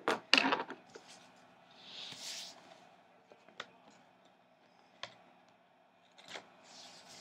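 Loose paper planner pages and scissors being handled on a wooden tabletop. There are several sharp clicks and taps, loudest in the first half second, a soft paper rustle about two seconds in, and a few scattered ticks after that.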